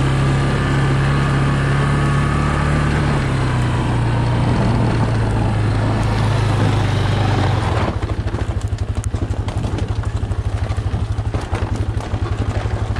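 Yamaha Big Bear ATV's single-cylinder four-stroke engine running just after starting, at a fast, steady idle. About eight seconds in it settles to a slower idle with a distinct, even pulsing beat.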